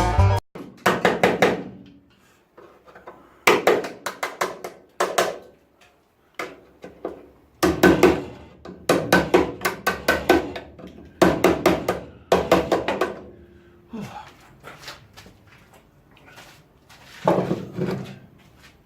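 Bursts of quick hammer blows on the car's steel body, several strikes in each burst with pauses between, knocking off what is left of the old floor metal.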